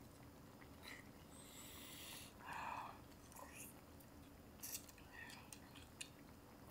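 Faint chewing and mouth sounds of a person eating a slice of boiled beef, with a few soft clicks and one short, slightly louder sound about two and a half seconds in.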